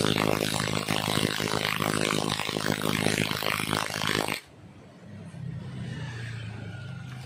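Two cordless impact drivers, an NRT Pro and a Total, hammering at once as they drive long lag screws into wood: a dense, rapid rattle of impacts. It cuts off suddenly about four and a half seconds in, as a battery runs flat. A fainter steady low hum follows.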